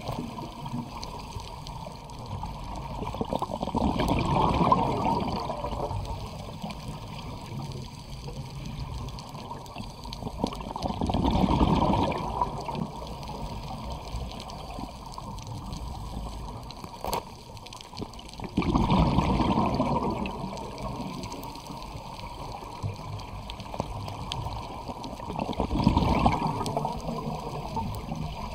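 Underwater recording of a scuba diver breathing: exhaled bubbles from the regulator gurgle and rush past in surges about every seven seconds, with a steady low water rush between.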